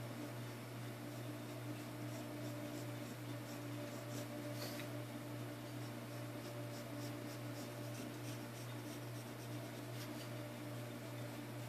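Mechanical pencil scratching lightly across paper in short sketching strokes, over a steady low electrical hum.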